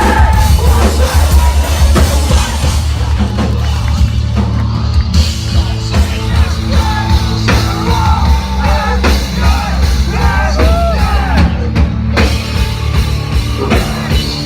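Live heavy rock band playing loud: distorted guitars, heavy bass and pounding drums, with sung and shouted vocals.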